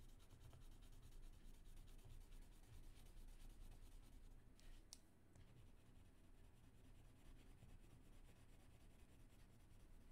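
Faint, steady scratching of light shading strokes colouring on paper, with a brief click about halfway through.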